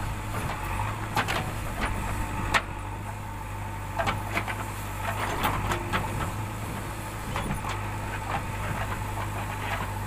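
JCB 3DX backhoe loader's diesel engine running steadily under load while the backhoe arm digs and swings soil, with scattered sharp knocks from the working machine.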